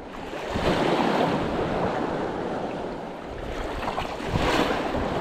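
Choppy sea water washing and splashing against shore rocks, with wind buffeting the microphone. The noise swells twice, about half a second in and again around four seconds in, the second time with a brief hissing splash.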